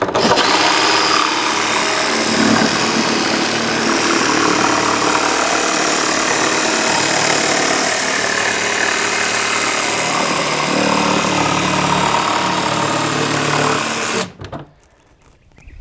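Cordless jigsaw cutting through the kayak's plastic deck along a marked line to open the hatch hole, running steadily for about fourteen seconds and then stopping.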